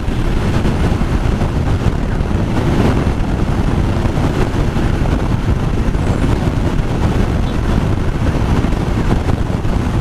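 Wind rushing over the microphone of a motorcycle riding at highway speed, about 80 km/h, with the bike's engine and tyres running steadily underneath.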